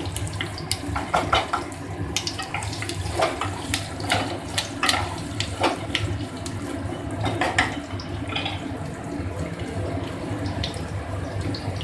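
Cauliflower and potato pieces sizzling in hot oil in a kadhai, with a wooden spatula scraping and knocking against the pan at irregular moments as they are stirred.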